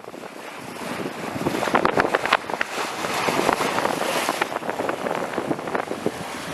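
Wind buffeting the microphone over the rush and splash of sea water along a sailboat's hull at sea. The noise swells over the first couple of seconds, with a flurry of splashes about two seconds in.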